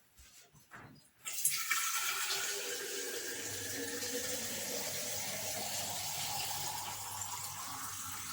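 Water tap turned on about a second in and running steadily, filling a container with water.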